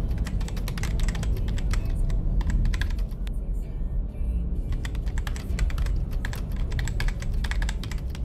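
Computer keyboard typing: a quick, irregular run of keystroke clicks that stops about three seconds in and starts again about five seconds in, over a steady low rumble.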